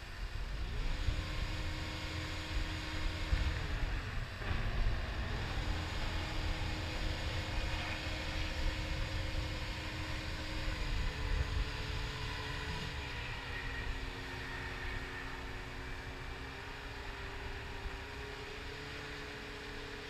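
Caterpillar 236D skid steer loader's diesel engine running with its hydraulics working as the lift arms raise the bucket and tilt it. A whine over the engine's rumble rises in pitch about a second in, drops about four seconds in, and steps to new pitches a couple more times later.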